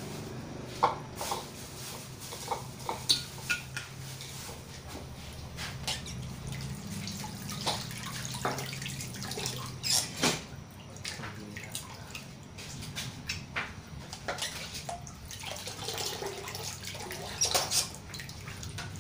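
Cooking oil heating in a wok over a gas flame, crackling with irregular sharp pops and ticks, a few louder clusters of them.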